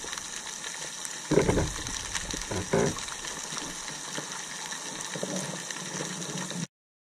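Underwater ambience picked up by a camera held below the surface: a steady hiss of the sea, with two short swells of water movement about a second and a half and nearly three seconds in. It cuts off suddenly near the end.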